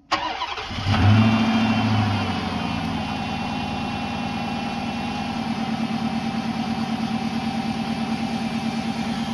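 Rebuilt 5.7 L Hemi V8 of a 2006 Dodge Charger cranking for under a second and catching about a second in with a brief flare of revs, then settling into a steady idle.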